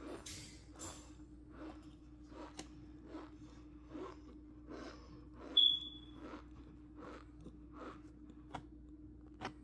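Plastic spoon pressing and dragging through packed cornstarch: a run of soft crunches about twice a second, with one brief high squeak a little past halfway.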